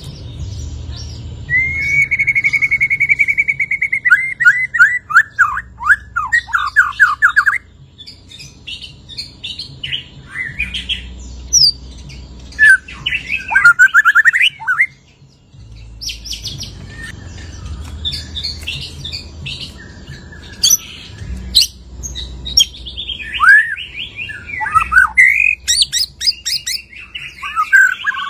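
White-rumped shama singing its varied song: a long rapid trill, then a run of fast downward-sweeping notes, then shorter mixed whistles and chattering phrases with brief pauses. The bird is just out of its moult and pours out its full repertoire of learned phrases.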